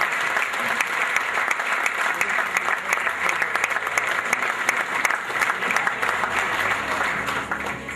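Audience applauding: dense, steady clapping that thins a little near the end.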